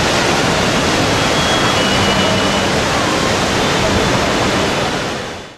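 Kjosfossen, a large waterfall, rushing as a loud, steady wash of noise that fades out just before the end.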